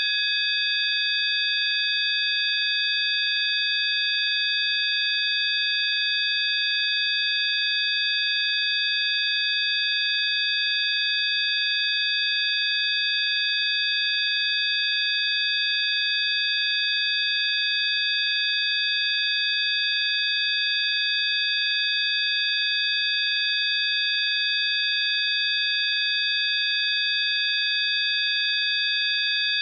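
Synthesized 'healing frequency' tone: several high, pure sine tones sounding together, held perfectly steady without any change, over a faint hiss.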